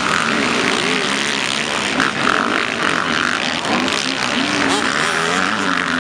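Several motocross bikes racing on a dirt track, their engines revving up and down over one another as they take the jumps and corners.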